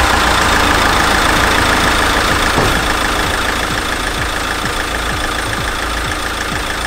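Common-rail diesel car engine idling steadily with the hood open.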